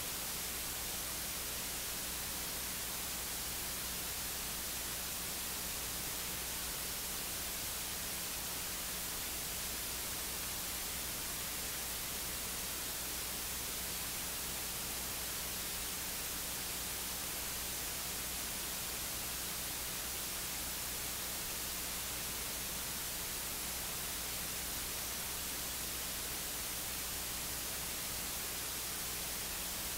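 Steady electronic static hiss with a faint low hum beneath it, unchanging, and no voice heard.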